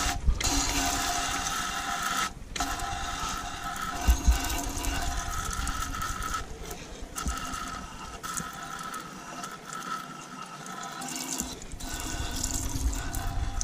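A thin stream of water spraying onto an engine to rinse dish-detergent foam off oily metal. It runs steadily with a faint whine, breaking off briefly a few times.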